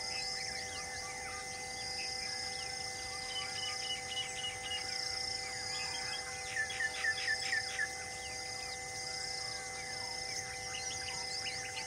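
Wild birds calling with many short chirps and whistles, including a run of about six loud chirps a little past the middle, over insects trilling in a regular pulse.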